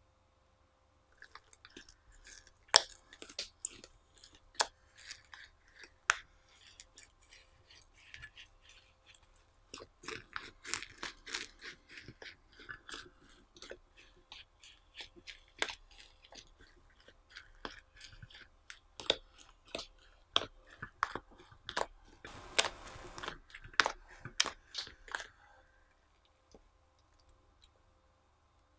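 Slime being squished and mixed by hand, with crackling, popping and crunchy clicks that start about a second in and stop near the end.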